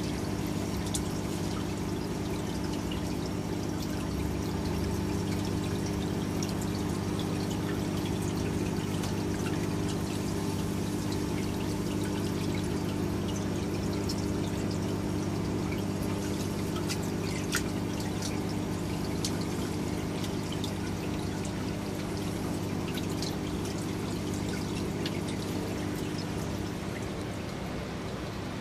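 Water pouring steadily from outlet fittings into an aquarium refugium container full of chaeto algae, over a steady low hum, with light splashing as a hand moves through the water and algae.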